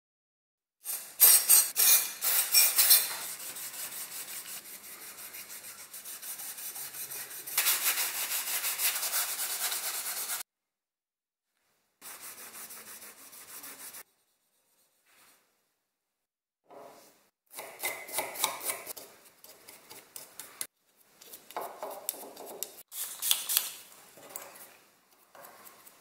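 A four-bladed sheet-metal fan from a space heater being rubbed and polished by hand, with rasping strokes. The strokes are quick at first, then steady, in several stretches that stop abruptly between edited cuts.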